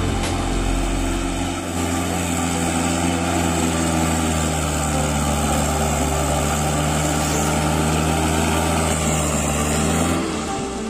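Small farm tractor's diesel engine running at a steady speed as the tractor drives slowly past, dipping slightly near the end.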